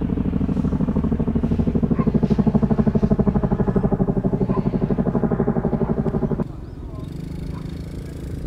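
Paramotor engine and propeller running at power, a steady droning note with a fast rhythmic pulsing. About six and a half seconds in it drops suddenly to a quieter, lower hum.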